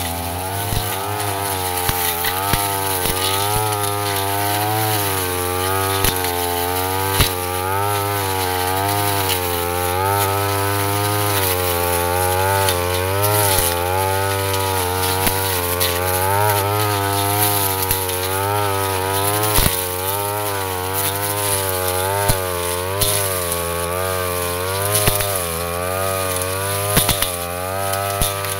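YASUKA petrol brush cutter fitted with a metal blade, running at high speed as it cuts through dense ferns. Its engine pitch keeps wavering up and down as the blade meets and clears the growth, with occasional sharp clicks.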